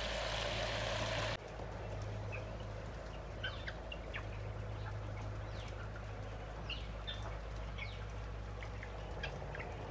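Water gushing from a drainage pipe into a net, cutting off suddenly about a second in. Then birds chirping in short, scattered high calls.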